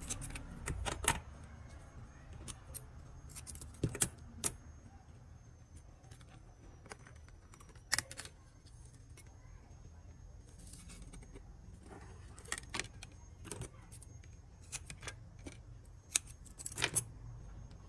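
Scissors snipping strips of double-sided adhesive tape, with the tape and the glass phone back panel being handled: scattered sharp clicks and snips in small clusters, with quiet rustling between.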